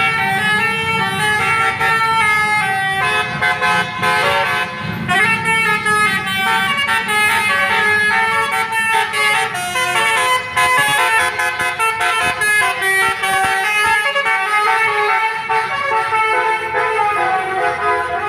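A bus's 'basuri' telolet musical air horn plays a fast melody of many short stepped notes, over the low rumble of the bus's engine.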